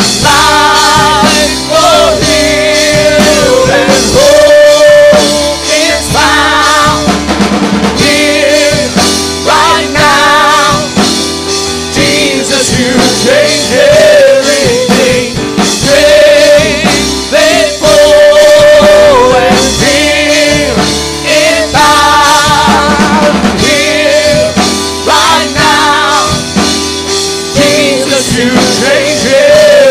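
Live gospel worship music: singers on microphones sing drawn-out melody lines over keyboard and drum kit.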